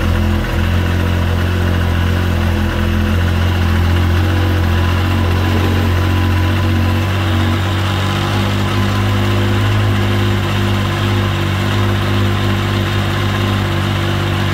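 Yamaha Sidewinder snowmobile's turbocharged four-stroke triple idling steadily, run for a few minutes after a fresh oil change to circulate the oil before its level is checked.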